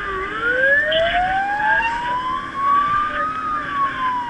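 Rural Fire Service fire truck's wail siren, heard from inside the cab: the pitch rises slowly for about three seconds, then begins to fall near the end.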